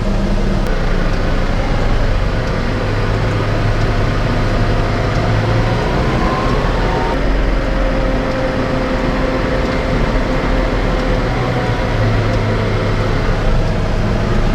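Telehandler's diesel engine running steadily while driving on the road under load, with its note shifting in pitch around the middle.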